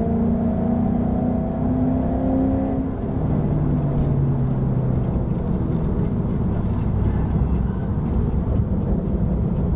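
Car engine running under load, its pitch climbing slightly for about three seconds, then dropping about three seconds in and running steadily at lower revs.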